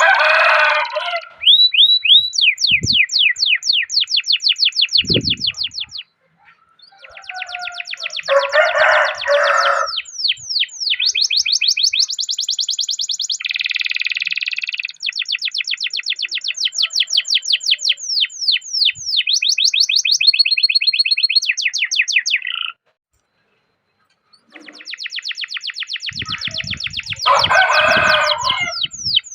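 Domestic canary singing long rolling trills of rapid, evenly repeated high chirping notes, with a few lower, buzzier passages mixed in. The song breaks off briefly twice.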